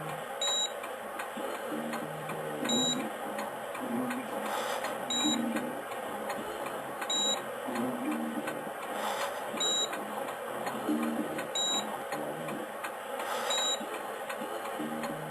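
A short electronic beep repeating about every two seconds over a steady hiss.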